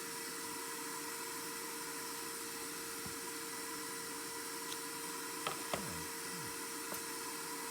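A hot air blower runs with a steady hissing rush of air and a constant motor hum, with a few light clicks in the second half.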